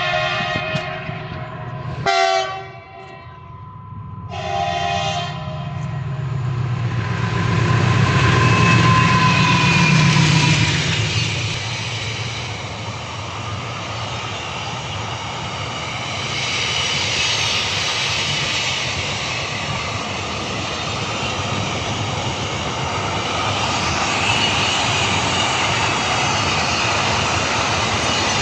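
A train horn sounds three times: one long blast, a short one about two seconds in and another about four seconds in. Then a train rumbles past with steady rolling wheel noise, loudest around eight to ten seconds in.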